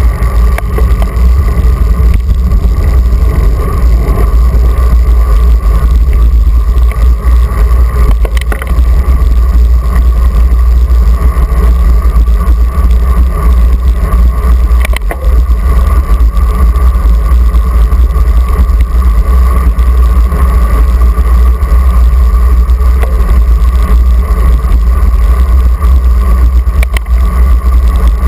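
Steady, heavy low rumble of wind buffeting an action camera's microphone on a moving road bike, with a few faint clicks.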